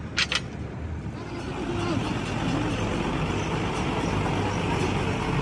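A motor vehicle's engine running, growing louder about a second in and then holding steady. Two sharp metal clinks come right at the start.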